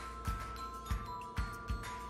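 Background music: a track with a steady beat of about two thumps a second and a chiming, bell-like melody.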